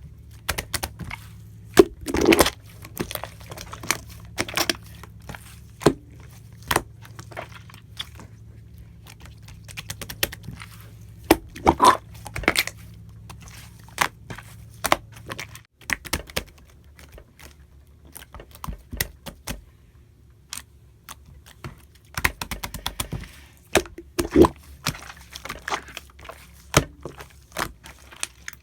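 Slime being squeezed and pressed by hand, giving irregular sharp clicks and pops in quick clusters with short pauses between.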